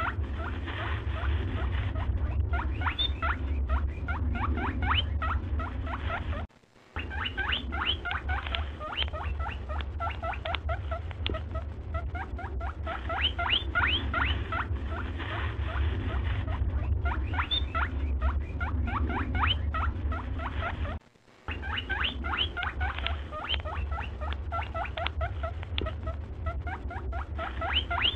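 Looped background audio: rapid high chirps over a steady low hum, repeating about every fourteen and a half seconds, with a brief dropout each time the loop restarts.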